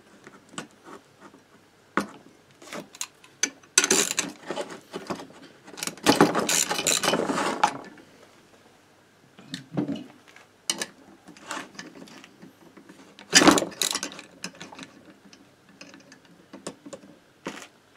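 Ratchet wrench clicking in several bursts as it turns an eccentric stud extractor to back the cylinder studs out of a moped engine case. The longest run of clicking comes a little after the middle, and single knocks of metal parts being handled fall between the bursts.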